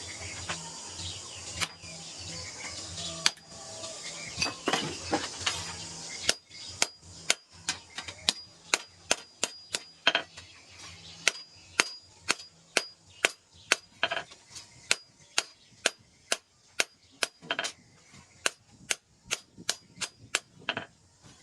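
Hammer striking steel on an anvil: a few scattered blows over a steady hiss and low hum at first, then from about six seconds in a steady run of about two ringing blows a second.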